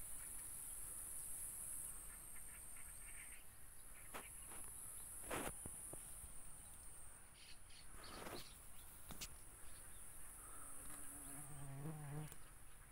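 Steady high-pitched buzzing of insects, with a few short sharp chirps in the middle and a faint, wavering call from further off near the end.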